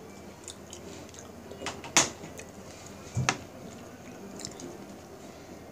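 Chopsticks clicking against a glass plate of food: a few light ticks, one sharp click about two seconds in and a duller knock about a second later.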